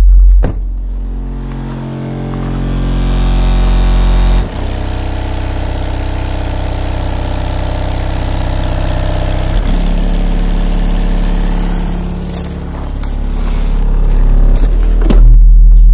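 Deep, sustained bass notes from a song played through a Deaf Bonce Apocalypse SA-272 12-inch car subwoofer, heard from outside the vehicle, the bass note changing every four to five seconds.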